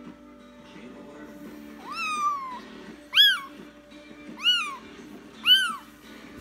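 Young kitten meowing four times in short, high cries that rise and then fall in pitch; the first is the longest. Background music plays underneath.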